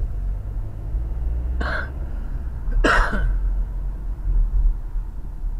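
Low, steady engine and road rumble inside a car's cabin as it gathers speed, broken by two short throat sounds about a second apart near the middle, the second dropping in pitch.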